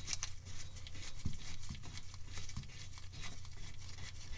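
Faint scratching, rustling and small clicks of a hand unscrewing the speedometer cable's threaded collar from a Datsun 240Z transmission, over a low steady hum.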